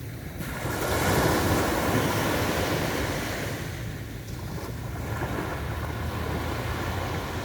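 Waves breaking and washing up a beach. One wave swells in about half a second in and is loudest over the next second or so, then eases, and a smaller wash follows near the middle, over a steady low rumble of surf.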